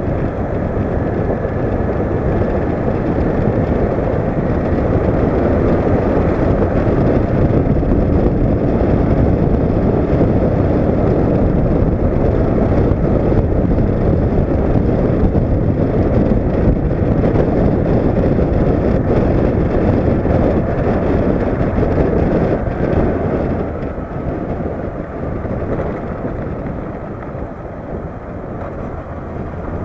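Wind buffeting an action camera's microphone on a moving motorcycle, over the Honda CB500X's parallel-twin engine, whose faint note drifts up and down in pitch. The rush eases off a little from about two-thirds of the way through, as the bike slows.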